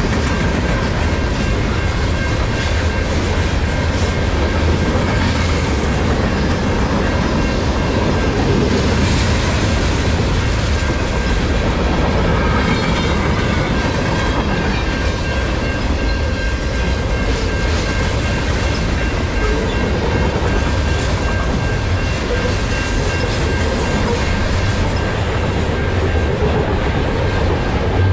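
Freight cars of a long CN mixed freight train rolling past at track level: a steady, loud rumble of steel wheels running on the rails.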